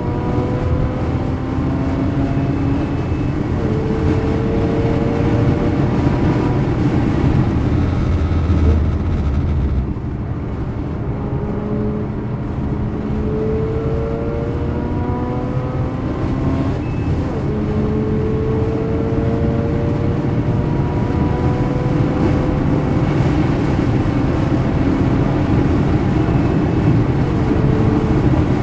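Mazda rotary (Wankel) engine heard from inside the cabin under hard track driving, climbing in pitch in several long rising sweeps, each broken off by a sudden drop, over a constant rumble of tyre and road noise. The sound dips briefly about ten seconds in.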